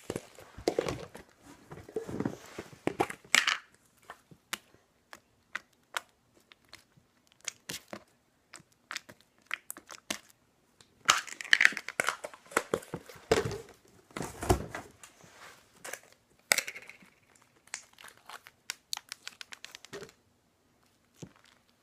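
Slime being stretched and poked by hand: crackling, popping clicks that come in denser bursts near the start and again about halfway through, with scattered clicks in between.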